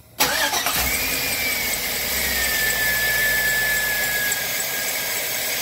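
2003 Chevy Tahoe engine running after a sudden start, with a steady high-pitched serpentine belt squeal that slides a little lower in its first couple of seconds and then holds. This is the belt squeak being fixed, and a brand new belt has not cured it.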